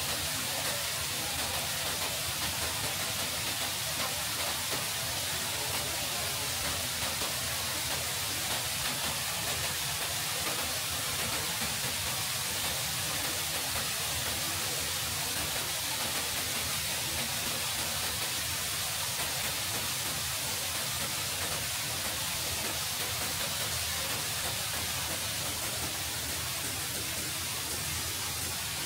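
Steady rain falling: an even hiss with no separate drops, knocks or other events standing out.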